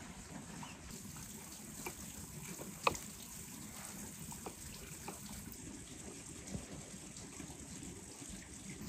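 Steady trickle of running water, with light clicks from jars and tomato slices being handled and one sharper click about three seconds in.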